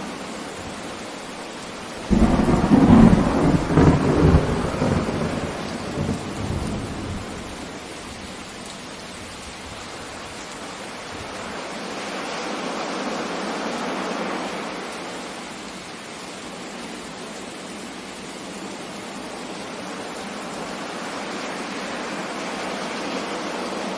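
A thunderclap about two seconds in: a sudden loud crack that rumbles on for several seconds before fading. Steady rain runs beneath it, swelling and easing twice later on.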